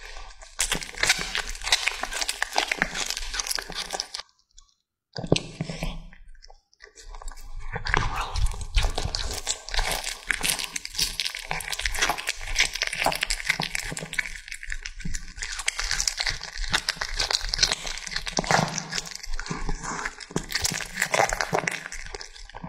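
Cat chewing and biting into raw tomahawk steak: wet, irregular crunching and tearing of meat. There are two short silent gaps, about four to five seconds in and again just before seven seconds.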